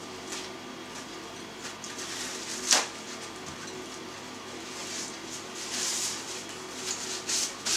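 A paper napkin rustling as it is handled and wiped across the mouth, in short bursts in the second half, with a single sharp click about three seconds in.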